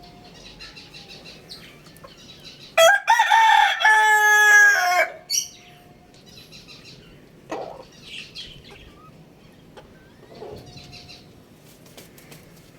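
A rooster crowing once, a single loud crow of about two seconds, a few seconds in. Faint chirping of small birds comes and goes around it.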